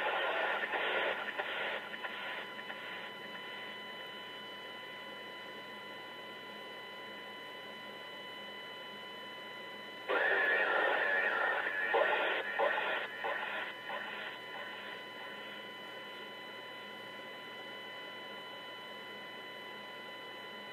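Online police scanner feed: radio transmission audio with a narrow, tinny band, fading out in the first couple of seconds into steady hiss with faint steady tones, then another burst of transmission about ten seconds in that breaks up and fades over a few seconds.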